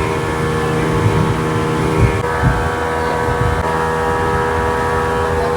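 Boat engine running steadily at an even pitch, with rumbling water and wind noise underneath.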